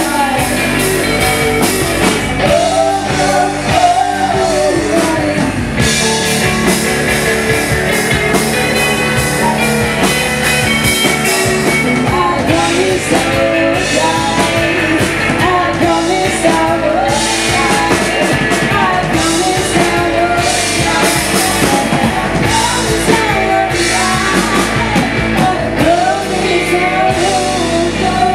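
Live indie rock band playing loudly: electric guitar over a drum kit.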